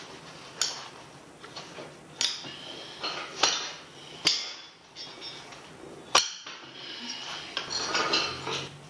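Steel hand tools clinking and knocking against the engine's front pulley and block as the pulley is worked loose by hand: a handful of sharp metallic clinks with brief ringing, the loudest about six seconds in.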